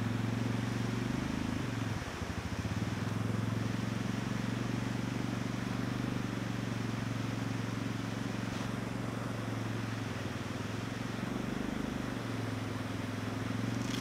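ATV engine idling steadily, its note wavering briefly about two seconds in, over the rush of a fast-running creek.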